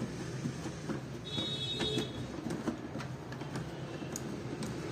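Light clicks and scrapes of plastic as the float valve's nut is unscrewed by hand from a plastic toilet flush tank, with a brief high squeak about a second in, over a steady low hum.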